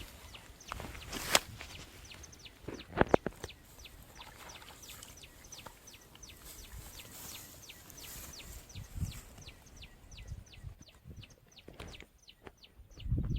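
A bird calling in a rapid series of short, falling chirps, about four or five a second. A few sharp knocks stand out about a second in and again around three seconds in.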